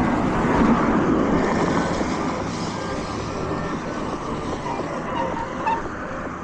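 Street traffic noise on wet roads, a steady rushing hiss, loudest about a second in.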